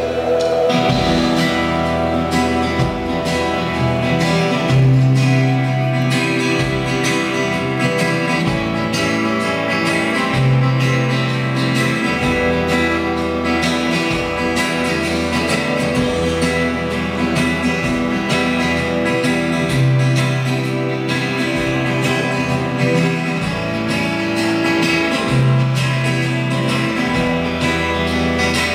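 Rock band playing live through a PA, guitars strumming over bass, with long held bass notes coming back every few seconds; little or no singing.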